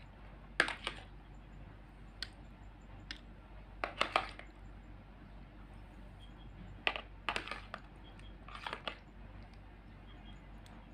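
A metal spoon clinking and tapping against glass dessert goblets while jelly is spooned in: scattered light clicks every second or so, some in quick pairs.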